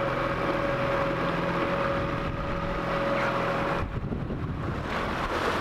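Yamaha 15 hp tiller outboard motor running steadily at speed, with wind on the microphone and water rushing past the hull. About four seconds in the steady engine tone drops away, leaving mostly wind and water noise.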